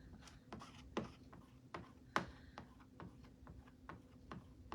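Soft, irregular taps and scrapes, several a second with two sharper knocks, from chalk paste being worked through a stencil onto a chalkboard. A faint steady hum runs underneath.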